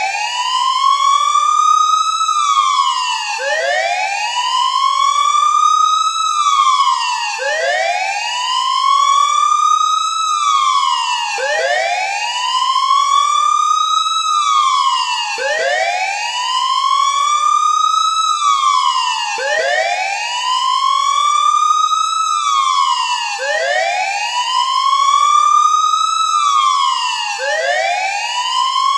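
Siren wailing in a steady cycle: the pitch rises slowly for about three seconds, falls quickly, and repeats every four seconds or so. It serves as the earthquake drill's alarm.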